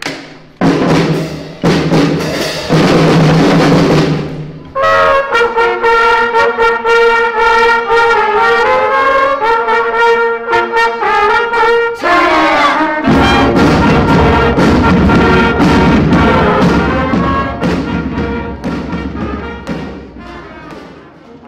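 Elementary school marching band playing its final song on brass and drums. The music dies away near the end.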